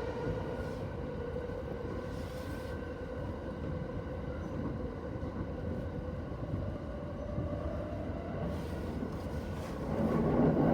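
Yokosuka Line electric commuter train running on the rails, heard from on board: a steady rumble of wheels on track with a faint motor whine that rises a little in pitch. Near the end the running noise grows suddenly louder.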